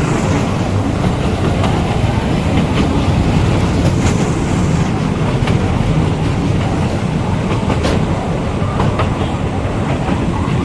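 A miniature toy train running on its track, heard from on board: a steady low rumble with a few scattered sharp clicks from the wheels and rail joints.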